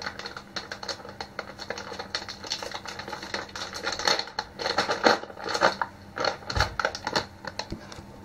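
Hands struggling to get a plastic package open: rapid, irregular clicking, crackling and scratching of fingers and nails on plastic, with one dull bump about two-thirds of the way through.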